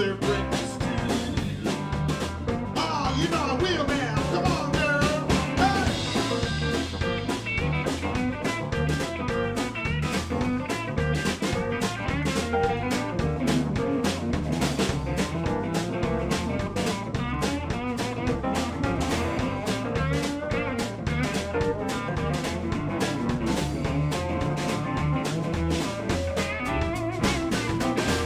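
Live blues band playing an instrumental passage: electric guitar over bass, keyboards and drum kit with a steady beat.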